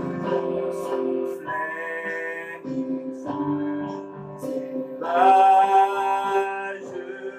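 A man singing a hymn in long held notes over a steady instrumental accompaniment, his loudest and highest held note coming about five seconds in.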